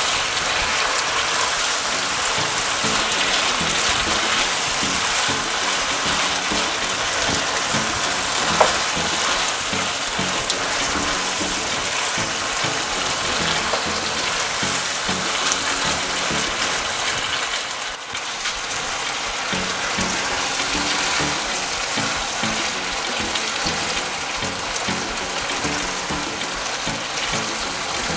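Shrimp frying in a pan of barbecue sauce: a steady sizzle, with one sharp click about eight seconds in.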